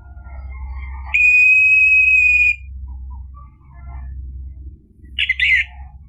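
Orange-headed thrush singing: faint scattered notes, then a loud, long, steady whistled note about a second in, and a short warbling chirp near the end, over a low steady hum.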